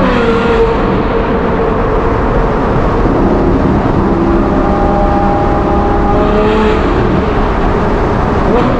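Ferrari 812 GTS's naturally aspirated 6.5-litre V12 through a Novitec exhaust, echoing in a road tunnel. The pitch drops sharply with an upshift from third to fourth at the start, then the engine pulls at a fairly steady note.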